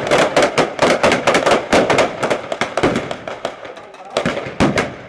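Rapid blank rifle fire from many rifles, several overlapping shots a second, thinning out to a few last shots near the end.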